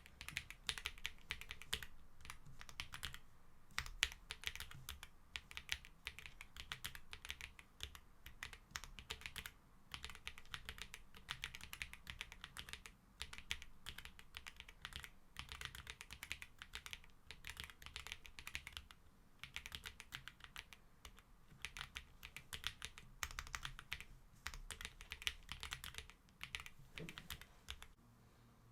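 Typing on a Graystudio Space65 R3 mechanical keyboard with G-Square White Knight switches: fast runs of keystrokes with a few brief pauses.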